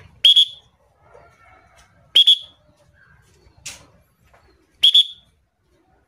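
A pigeon-calling whistle blown in four short, shrill blasts about a second and a half apart, the third one breathier. It is the owner's recall signal, calling a free-flying pet pigeon back to him.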